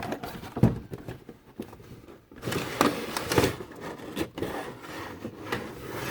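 Handling noise from a 1:18 diecast model car being moved and turned in the hands: scattered light knocks and clicks, then denser rubbing and scraping with more knocks from about two and a half seconds in.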